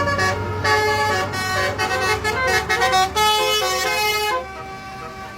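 Telolet multi-tone horn of a coach bus playing a quick tune of changing notes, over the bus's engine running with a steady low hum. The tune stops about four and a half seconds in.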